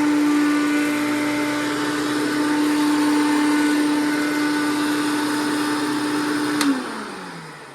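Hoover Breathe Easy vacuum cleaner running with a steady motor hum and airflow hiss, then a click near the end as it is switched off and the motor winds down, its pitch falling.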